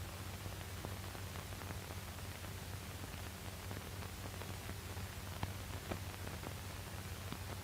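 Surface noise of an old optical film soundtrack: a steady hiss with a low mains-like hum and scattered faint crackles. One click is a little louder about five and a half seconds in.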